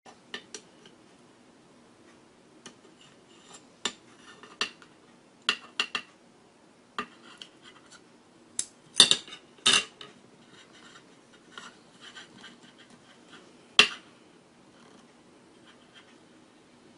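Chopsticks clicking and tapping against a ceramic serving plate and spoon while pieces of chicken are picked up: scattered light clicks, with a few louder knocks about nine to ten seconds in and again near fourteen seconds.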